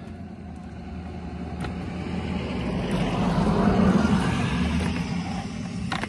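A car passing on the road, its tyre and engine noise swelling to a peak about four seconds in, then fading away.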